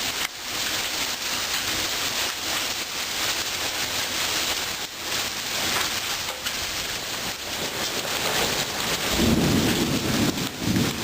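Rain falling steadily, with a low rumble of thunder rising in about nine seconds in.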